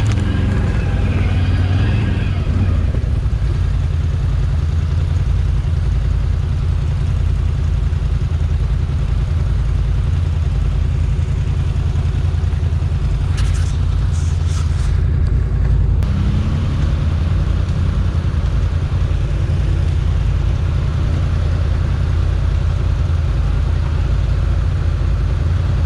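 Can-Am Outlander 1000 XMR ATV's Rotax V-twin engine running steadily, with a few short knocks about halfway through.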